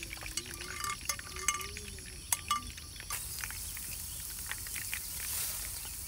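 A few light clinks of cookware in the first half, then a steady hiss that starts suddenly about halfway through.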